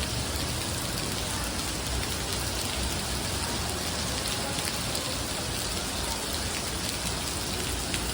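Heavy rain falling steadily, a dense even hiss with scattered drops pattering on hard surfaces.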